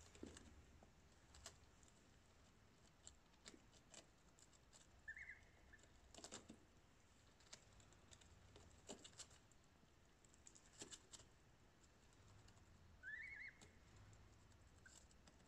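Goslings pecking and tearing at a napa cabbage: faint, scattered crisp clicks and snaps of bills on the leaves, with two short high peeps, the second one rising.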